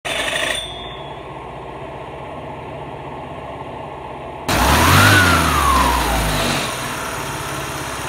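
Honda Metropolitan NCH50's 50cc four-stroke single idling with its belt cover off and the cooling fan spinning on the crankshaft. About four and a half seconds in it revs up once and drops back to idle. The engine is starting and running again on the crankshaft's welded-up fan splines.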